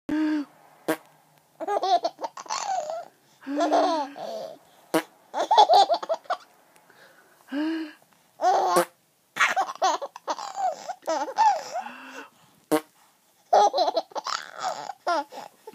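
Baby laughing hard in repeated high-pitched bursts of giggles, separated by short pauses, with a few sharp clicks between bursts.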